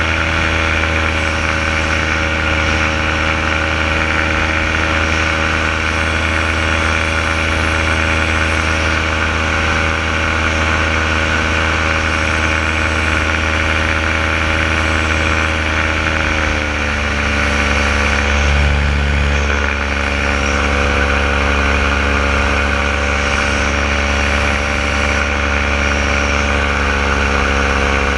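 Powered paraglider's paramotor engine and propeller running steadily in flight. About 17 seconds in, the engine speed drops slightly to a lower, steady pitch.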